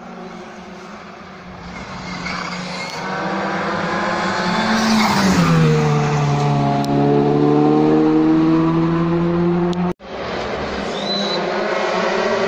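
Rally car engine at high revs, growing louder as it comes up the road, then dropping sharply in pitch as it passes about five seconds in and holding a steady note as it drives away. The sound cuts out abruptly about ten seconds in, and the next rally car's engine is heard approaching.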